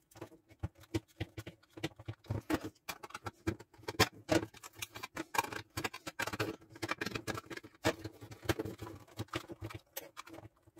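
Quick, irregular plastic clicks and knocks as a yellow plastic electrical gang box is handled and a power cord is pushed into it and fitted, sped up to triple speed.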